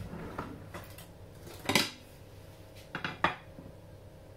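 Ceramic kitchenware clinking and knocking as a silicone basting brush is handled and laid down on a small plate: a few sharp knocks, the loudest just under two seconds in, then two close together about three seconds in, over a steady low hum.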